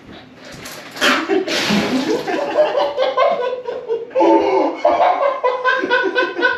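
Young men laughing hard: a loud breathy outburst about a second in, then laughter going on in quick, even bursts.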